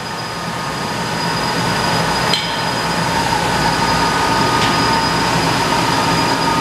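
DMG Mori DMU-210P 5-axis machining center running a part program: a steady machine hum and whine with several held tones, and a single knock about two seconds in.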